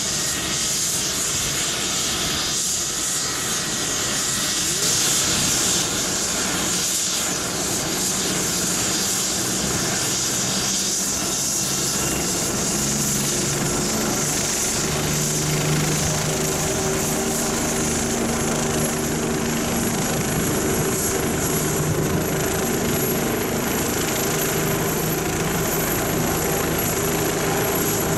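Bell 429 helicopter's twin turboshaft engines and main rotor running on the ground during start-up, before lift-off: a steady turbine whine. About halfway through, a low hum grows stronger and a thin high whistle comes in.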